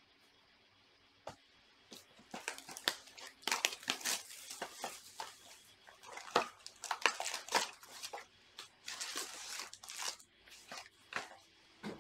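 A cardboard trading-card box being torn open and its card packs pulled out: crinkling and tearing of wrapper and cardboard, starting about two seconds in.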